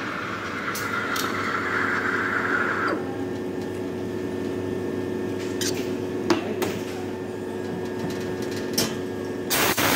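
Simonelli commercial espresso machine running its pump while pulling a double shot, a steady hum. A hiss stops about three seconds in, a few light clicks follow, and there is a brief loud clatter near the end.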